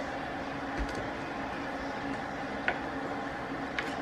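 Quiet kitchen room tone with a steady low hum, and one light click about two and a half seconds in as a metal spoon scoops lard from a tin can.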